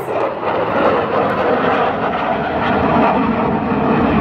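Jet engine noise of a USAF Thunderbirds F-16 fighter jet flying close by: a deep, steady rush that grows louder near the end.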